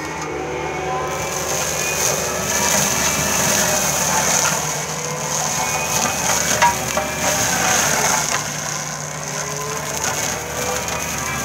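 Mini excavator's hydraulic mulcher head shredding brush: a steady high whine from the spinning rotor over the diesel engine running, with the crackling and snapping of woody branches being chewed up. The loudest snap comes about six and a half seconds in.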